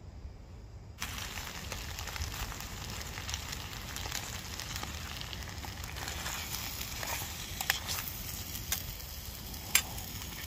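Food frying in a metal mess tin over a gas canister stove: a steady sizzling hiss with crackle that starts abruptly about a second in. A metal spoon stirs and scrapes against the tin, with a few sharp clinks near the end, the last one the loudest.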